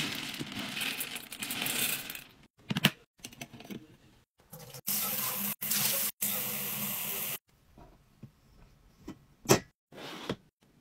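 Dry pet kibble poured from a plastic container into a stainless steel bowl: a dense rattle lasting about two seconds. A few clicks follow, then a faucet runs water into a sink for a couple of seconds, dropping out briefly twice, with a sharp click near the end.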